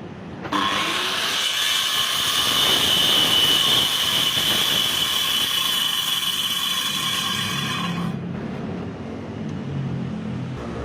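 Electric power tool running on wood with a steady high whine, starting about half a second in and cutting off about eight seconds in.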